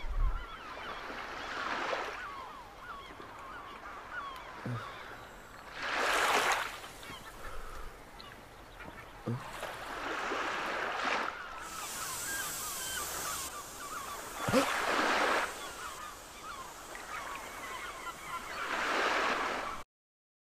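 Surf washing onto a beach in slow swells about every four seconds, with many short bird calls over it. The sound cuts to silence near the end.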